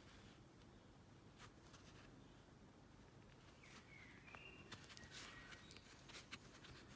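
Near silence, with faint soft ticks and rustles of a crochet hook working yarn, and a few brief faint high chirps around the middle.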